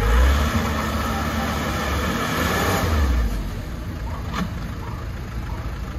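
Hoa Mai small dump truck's diesel engine pulling under load as the laden truck crawls over rough dirt, revving up just after the start and again about two and a half seconds in.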